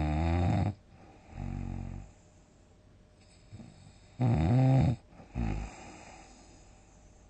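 A person snoring loudly in deep sleep: two long, loud snores about four seconds apart, each followed by a shorter, softer, lower one.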